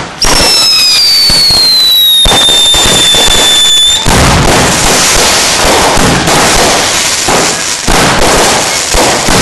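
Consumer firework cake firing overhead, loud. A whistle falls slowly in pitch for about the first four seconds, then gives way to a dense, continuous crackle of bursts and pops.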